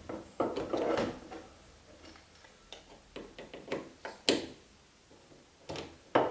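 Irregular small clicks and light knocks of a hand tool and fixings on a car's rear spoiler as its bolts are tightened by hand.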